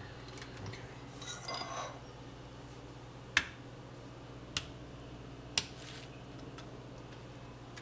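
A metal fork clinking sharply against a ceramic plate three times, about a second apart, while sauce is spread over tortilla wraps; a brief rustle comes before the clinks, over a steady low hum.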